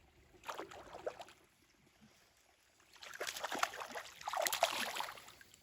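Water splashing in two bursts, a short one about half a second in and a longer one from about three seconds in, as a hooked bass is fought at the surface beside the boat.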